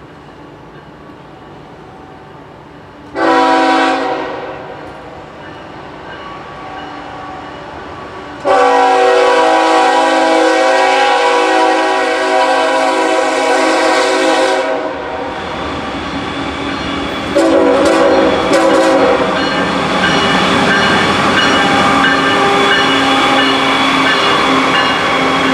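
Train horn sounding a chord: one short blast, then a long blast of about six seconds. A couple of seconds later the horn sounds again as the train comes close, over the steady rumble and clatter of the passing train.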